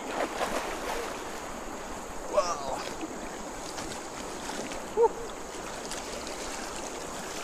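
Steady wash of moving water under a thin, high, steady insect drone, with two short calls that bend in pitch, about two and a half seconds in and about five seconds in.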